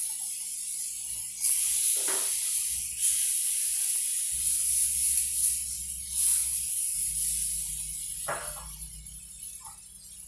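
Banana-and-oat pancake batter frying in oil in a pan: a steady sizzling hiss that swells now and then.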